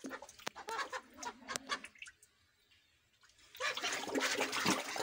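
Domestic ducks bathing and splashing in shallow water, with quacking. The splashing is intermittent at first, goes quiet for a moment, then turns into a burst of vigorous splashing about three and a half seconds in.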